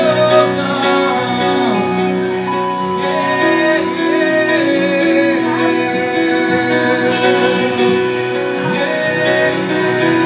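Live worship music: a band with guitar, and singing over it, playing steadily.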